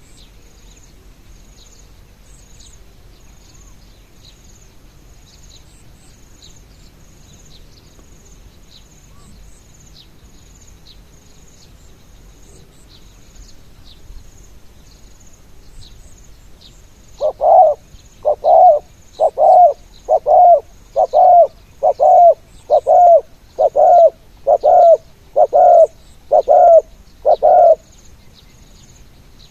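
Spotted dove decoy bird calling a run of about a dozen loud, evenly spaced coos, just under one a second, starting about seventeen seconds in. Faint, high insect chirping runs underneath throughout.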